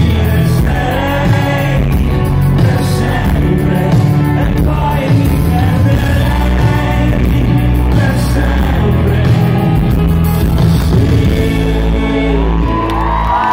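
Live rock band playing, with a male lead singer singing over drums and electric guitars, heard from within the audience in a large hall.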